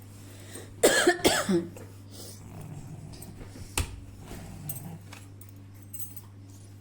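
A short, loud cough-like burst of voice about a second in, then a single sharp click a few seconds later, over a steady low hum.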